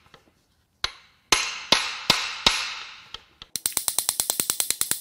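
Hammer blows on metal, five sharp ringing strikes about 0.4 s apart, as a stuck connecting rod is knocked at in the bottom end of a blown VW 2.0 TSI EA888 engine. About three and a half seconds in, a ratchet wrench takes over, clicking rapidly at about ten clicks a second.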